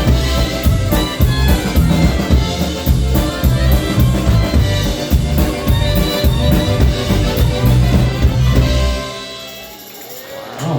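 Live polka band playing a polka, brass over a drum kit with a steady beat. The tune ends about nine seconds in and the last notes die away.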